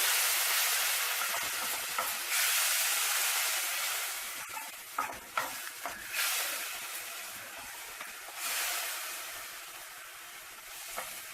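Tomato puree sizzling in hot oil in a kadhai with fried onion and garlic paste, being stirred. The hiss flares up again several times as it is stirred and gradually dies down, with a few sharp clicks of the spoon against the pan about halfway through.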